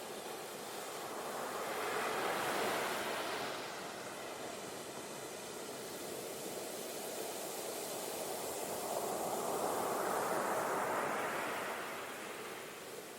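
Ocean surf: two waves swell up and wash in, the first peaking about two and a half seconds in and the second about ten seconds in, each fading back out.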